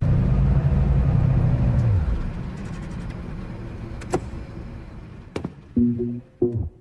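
Car engine sound effect running with a low rumble that fades away after about two seconds. It is followed by two sharp clicks and a few short pitched notes near the end, the sped-up intro of a pop song before the guitar comes in.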